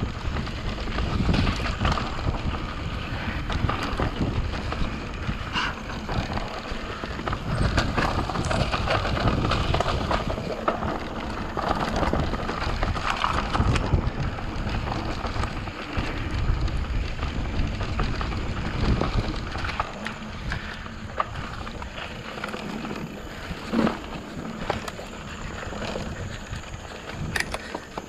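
Mountain bike riding fast down a dirt trail: tyres rolling over dirt and roots, with the bike rattling and knocking over bumps and wind buffeting the microphone. It eases off about two-thirds of the way through, with a couple of sharp knocks near the end.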